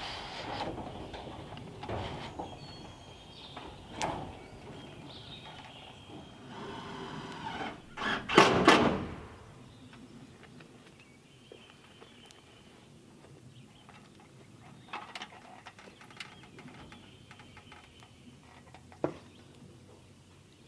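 Metal roofing panels being handled and fastened on a small roof: scattered knocks and clanks of sheet metal, with a loud clatter about eight seconds in, then a few faint taps.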